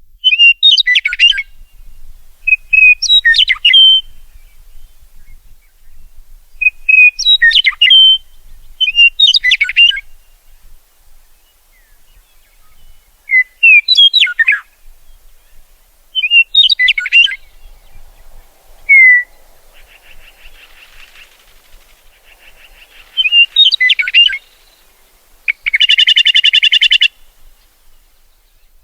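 Meadowlark singing short, slurred song phrases, repeated about every two to three seconds. Near the end comes a harsh, buzzy rattle lasting about a second and a half.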